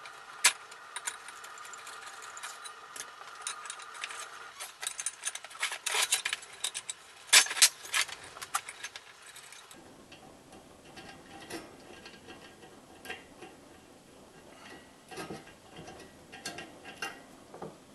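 Metal clinking and clicking from an open-end wrench working a propane tube fitting and from handling the steel parts of a partly dismantled Mr. Heater Buddy propane heater. The taps come in irregular clusters, busiest and loudest in the middle, with a few sharp knocks, then softer clicks near the end.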